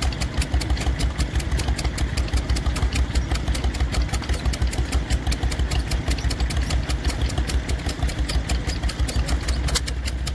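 Ruston Hornsby PB8 single-cylinder stationary engine running steadily just after starting, with a quick, even firing beat.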